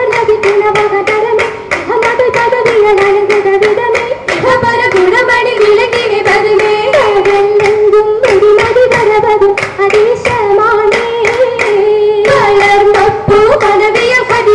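Oppana: a group of girls' voices singing a Mappila song together, with sharp handclaps keeping a brisk, even rhythm.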